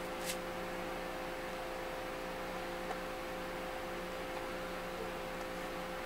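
Steady electrical hum with a faint hiss, and one faint click about a third of a second in.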